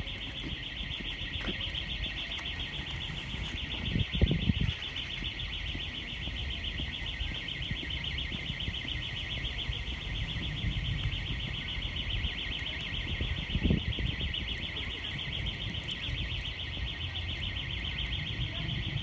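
An alarm ringing continuously: one steady, high, fast-fluttering ring that does not change, over a low rumble. Two louder thumps stand out about four seconds in and again near fourteen seconds.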